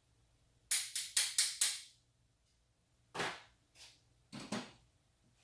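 Five sharp clacks in quick succession, then a few more separate knocks.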